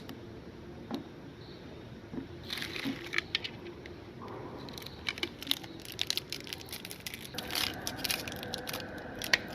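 Scattered clicks and crinkly crunches of candies being handled. About seven seconds in, a meat grinder's motor starts a steady hum that carries on.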